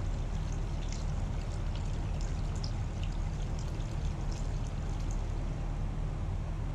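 Liquid epoxy primer pouring from a can into a plastic mixing cup, with small splashy trickling sounds. A steady low hum from the running shop heater sits underneath.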